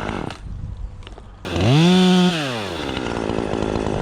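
Chainsaw idling, then revved hard once about a second and a half in, held briefly, and falling back to idle.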